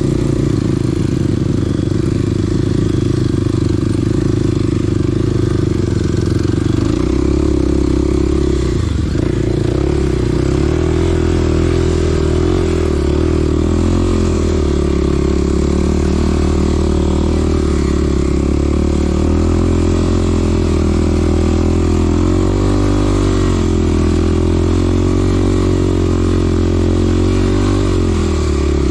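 Small dirt bike's engine running under way, its pitch rising and falling repeatedly with the throttle.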